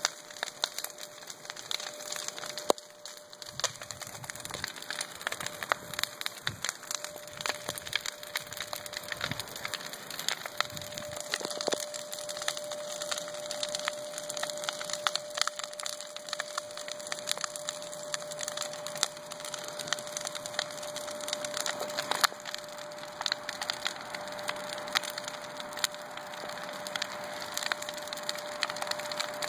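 Large brush-pile bonfire of branches, dry leaves and boards burning hard, crackling with dense, irregular sharp pops.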